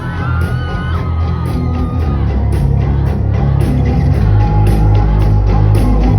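Rock band playing live at full volume, starting a song with heavy bass and drums and a steady cymbal beat, heard from within the audience with the crowd shouting along.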